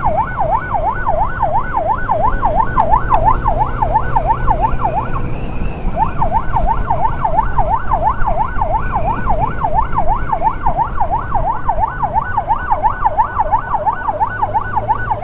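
Electronic yelp siren on an ambulance-escort motorcycle, sweeping quickly up and down about three times a second, with a brief break about five seconds in. The motorcycle's engine and road noise run underneath.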